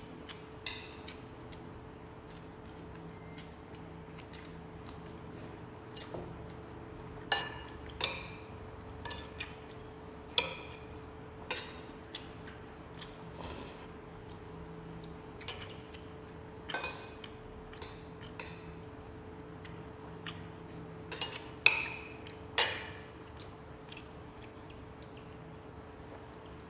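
Metal spoon clinking and scraping on ceramic plates and bowls while eating: scattered sharp clinks every second or two, the two loudest close together about four-fifths of the way through.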